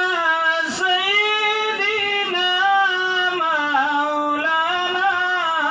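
A man singing a devotional chant solo into a microphone, amplified, with long held notes that waver and slide between pitches.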